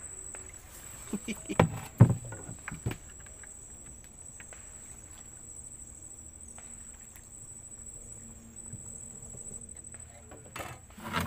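Steady high-pitched insect chirring with a handful of sharp knocks and taps in the first three seconds.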